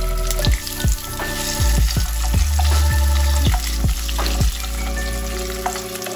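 Pabda fish frying in hot oil in a nonstick kadai, sizzling steadily with frequent sharp pops and clicks as a wooden spatula turns them.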